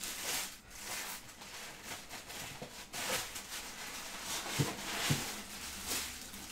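Plastic wrapping rustling and crinkling in irregular bursts as a wrapped statue base is handled and lifted out of its packing box, with two soft knocks past the middle.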